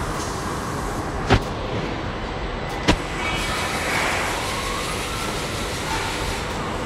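Steady rumbling background noise, with two sharp knocks about a second and a half apart early on.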